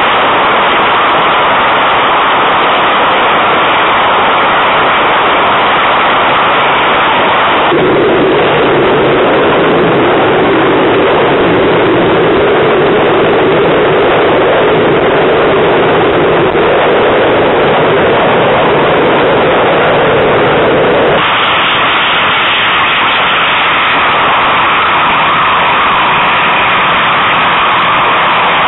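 Heavy wind noise on the microphone, loud and steady. Under it run the outboard engines of an RNLI Atlantic 85 inshore lifeboat going at speed through rough sea. The noise turns deeper about eight seconds in and brighter again about twenty-one seconds in.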